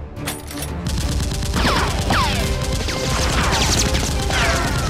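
Rapid automatic-gunfire sound effects starting about a second in, with several falling whistling tones among the shots, over background music with a steady beat.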